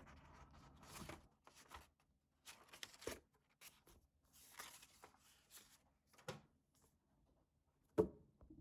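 Paper and packaging rustling as items are handled in an unboxing, in several short bouts, then one sharp knock near the end as something is set down.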